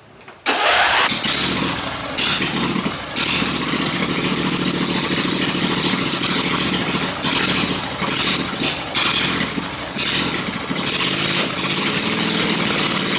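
Riding mower's swapped-in V-twin engine starting about half a second in, catching at once, then running with repeated surges in speed.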